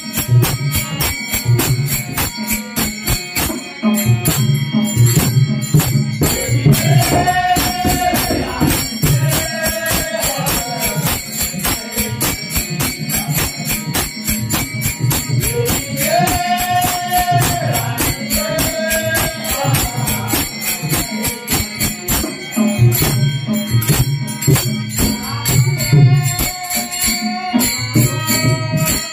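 Marathi devotional bhajan: a fast, steady clash of many small brass hand cymbals (taal) over pakhawaj barrel-drum strokes and harmonium, with held sung lines coming in several times.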